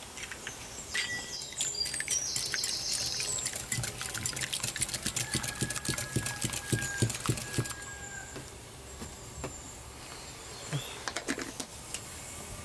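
Wire whisk beating eggs in a glass bowl: a rapid run of clicks as the wires strike the glass, stopping a little past halfway, then a few light taps.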